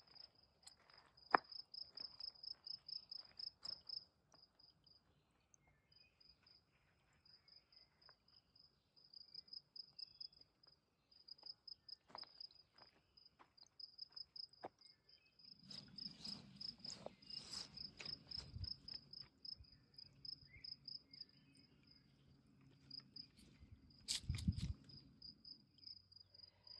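An insect trilling in a steady, high, rapidly pulsed chirp, breaking off briefly about four seconds in. A few faint knocks sound, and a low hum joins from about halfway.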